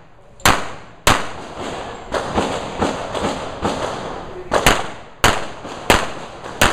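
Handgun shots fired in a run: two loud shots about half a second apart near the start, a stretch of fainter cracks, then five more loud shots roughly half a second apart toward the end, each with a short echo.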